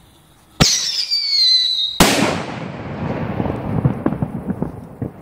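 45 mm scream shell firework: a sharp launch bang, then a loud screaming whistle that falls in pitch for over a second. About two seconds in it is cut off by a loud burst that rumbles away slowly, with scattered crackles.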